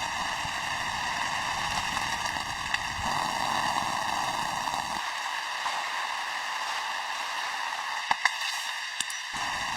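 Steady hiss of light rain, with a few sharp drip-like taps near the end.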